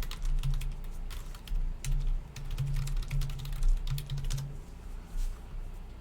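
Quick, irregular run of light clicks and taps, thinning out after about four and a half seconds, with short stretches of a faint low hum.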